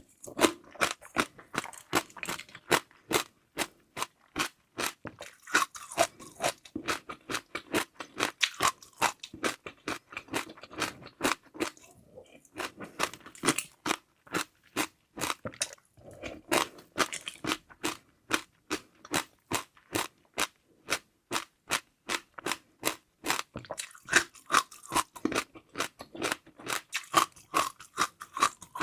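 Close-miked chewing of crunchy seaweed jelly pearls: steady, rapid crunching at about two to three crunches a second, broken by two brief pauses near the middle.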